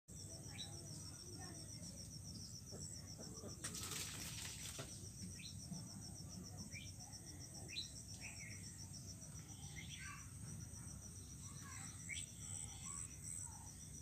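Insects trilling steadily with a high, rapidly pulsing chirr. Short chirps are scattered throughout, and there is a brief rustling burst about four seconds in.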